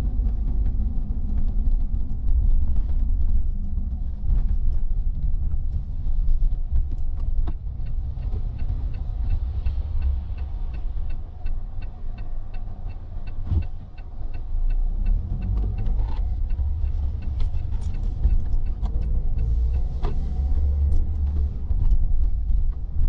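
Car cabin sound while driving on wet city streets: a steady low rumble of engine and tyres. Midway there are several seconds of faint, evenly spaced ticking.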